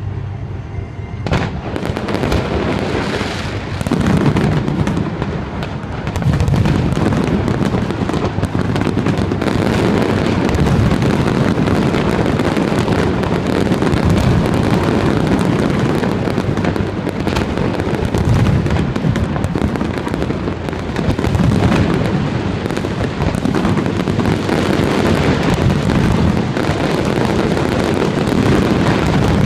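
Fireworks display: a dense, continuous barrage of bursts and crackling shells, building up about a second in and again around six seconds in.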